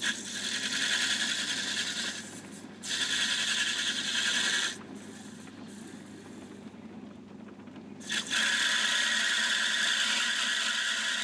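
Metal lathe running with a steady motor hum while the tool cuts a spinning phosphor bronze bar, giving three spells of high hissing cutting noise, the last starting about eight seconds in.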